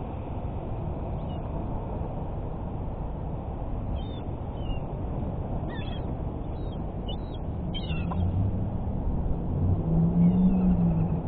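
Birds at a feeding spot: a few short, high chirps over a steady low rumble. Near the end a low, drawn-out pitched call swells and becomes the loudest sound.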